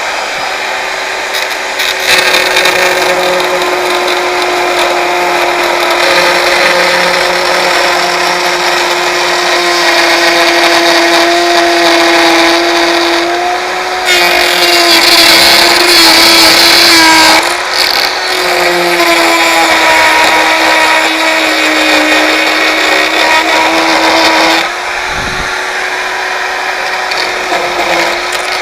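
A handheld power tool's motor runs continuously at high speed, its pitch sagging slightly at times as it bites under load. It runs loudest for a few seconds in the middle and eases briefly near the end.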